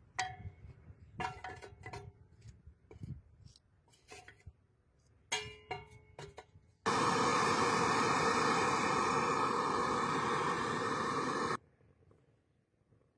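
Pieces of firewood knocking and clattering against a steel barrel stove's firebox as they are put in, with the metal ringing briefly at some knocks. About seven seconds in, a loud steady rushing noise starts suddenly and cuts off just as suddenly some five seconds later.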